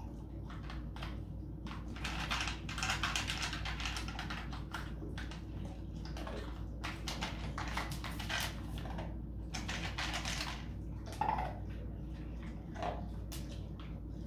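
Dog nosing and eating from a plastic puzzle slow feeder: rapid, irregular clicks and clatter of the plastic pieces and kibble.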